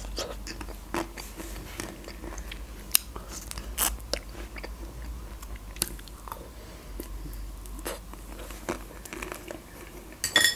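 Mouth sounds of a person biting and chewing a Magnum ice cream bar: scattered short crackles and clicks of the chocolate coating breaking, with wet chewing between them and a louder cluster near the end.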